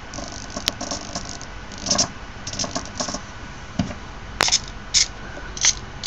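Scattered small clicks, scratches and rattles of hands handling a plastic joystick controller and small plastic fischertechnik parts, with a few sharper clicks among them.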